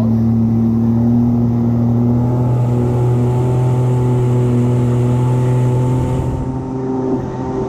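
Jet ski engine running steadily at speed while towing a rider on a tube, close up, with the rush of its jet wake and spray; the engine eases off slightly near the end.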